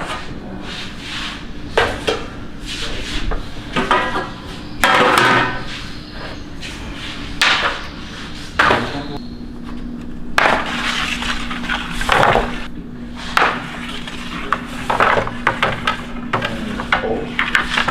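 Kitchen work clatter: repeated knocks and scrapes of trays and utensils, with a steady low hum setting in about nine seconds in.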